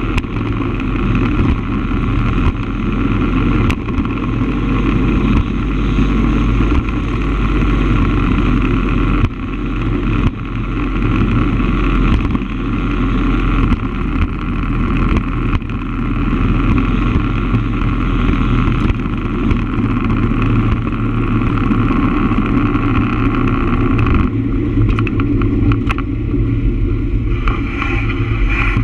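Steady running drone and road noise of a small low-riding vehicle travelling along asphalt. The sound changes and breaks up in the last few seconds as the ride slows.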